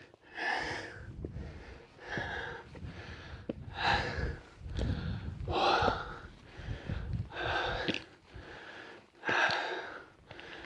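A hiker breathing hard and out of breath from a steep uphill climb, with a heavy gasping breath about every one and a half to two seconds.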